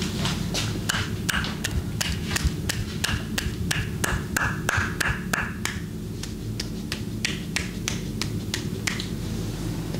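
Hands slapping and tapping on skin in a rhythmic percussive massage, about three sharp slaps a second with a short lull partway through, over a steady low hum.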